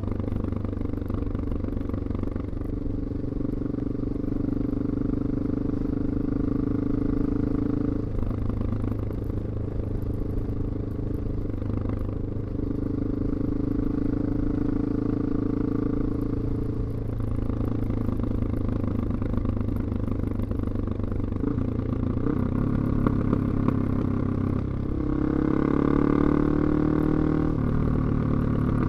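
BMW F 650 GS single-cylinder engine breathing through a Scorpion slip-on exhaust, heard from the rider's seat while riding. The note eases and picks up again several times with the throttle, and near the end it gets louder and higher as the bike accelerates.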